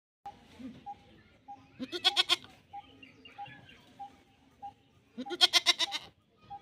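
A goat bleating twice, each call a quavering bleat of under a second, about three seconds apart.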